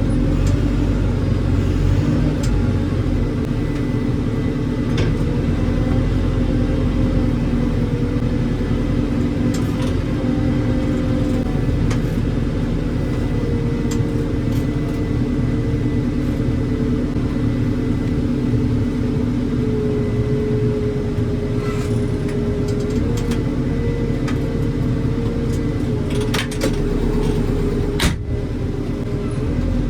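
Heavy diesel engine of a recovery machine running steadily under load, its pitch shifting slightly up and down. Scattered clicks and clanks, and one sharp knock near the end.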